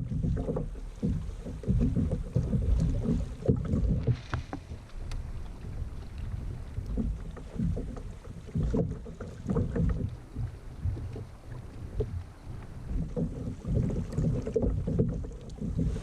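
Kayak on open water with wind buffeting the microphone: an uneven low rumble that swells and fades every second or so, with a few faint ticks.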